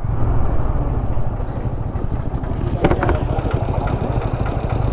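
Motorcycle engine idling steadily with a low, even rumble.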